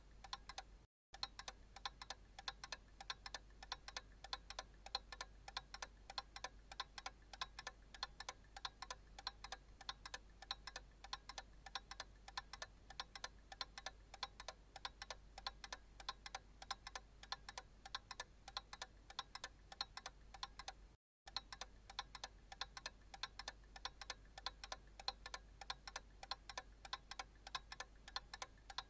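Analog clock ticking steadily in an even tick-tock rhythm, broken by two very brief silent dropouts, one about a second in and one about two-thirds of the way through.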